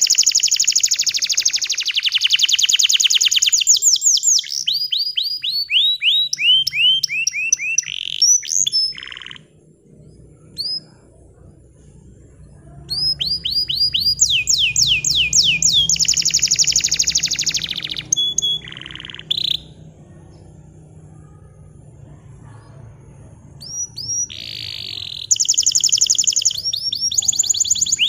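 Bottle-green canary singing: fast trills of rapidly repeated, falling high notes, in three long phrases broken by pauses of a few seconds.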